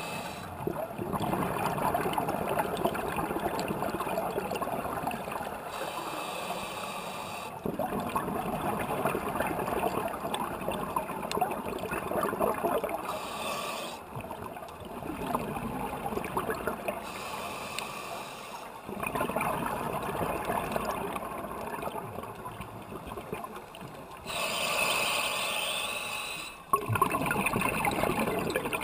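Scuba diver breathing through a regulator underwater: a short hissing inhale, then a longer bubbling exhale, repeating about every six seconds.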